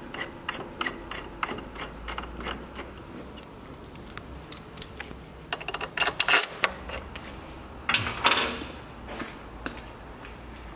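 Metal clicks and taps of a long hand driver working the bolts of a motorcycle landing-gear bracket as it is fastened, with louder bursts of metallic clatter about six and eight seconds in.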